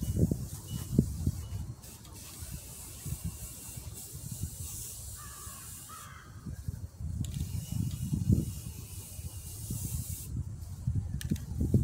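Rust-Oleum spray paint can hissing in on-and-off bursts, with wind gusting on the microphone in low rumbles.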